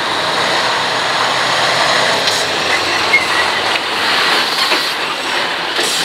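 Steady, loud noise of a heavy vehicle running close by.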